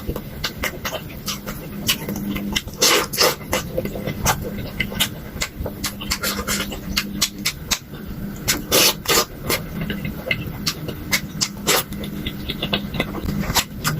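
Close-miked eating of spicy-sauced fried chicken: irregular crunching bites and wet chewing and mouth noises, over a low steady hum.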